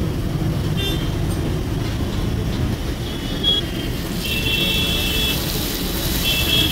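Steady street traffic rumble with vehicle horns honking, two longer honks in the second half, over the sizzle of ghevar batter frying in a kadai of hot ghee.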